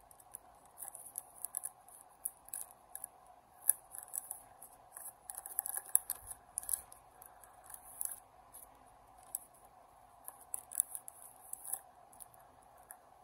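Packaging being handled and opened by hand: irregular crinkling, rustling and small sharp clicks, high-pitched, over a faint steady hum.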